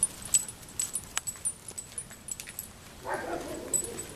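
Footsteps on a dirt path and light clicking and jingling of a Rhodesian Ridgeback's collar and leash hardware as she is walked on a leash. About three seconds in, a dog gives a short call that falls in pitch.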